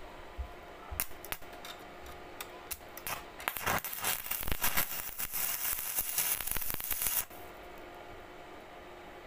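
Stick (shielded metal arc) welding on mild-steel rebar: a few sharp spits as the electrode strikes the joint, then a steady crackling arc for about four seconds that cuts off abruptly when the arc is broken.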